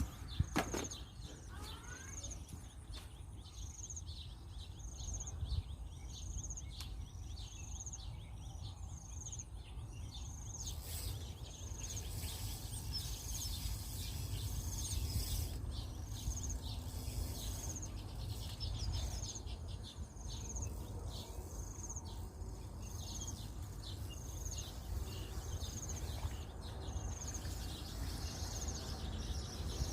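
Outdoor pond-side ambience: an insect gives a short high chirp at an even pace, about once a second, over a steady low rumble.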